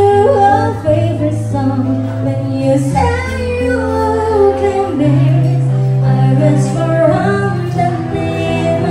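Live band music: a woman singing a slow melody into a microphone, backed by acoustic guitar and bass.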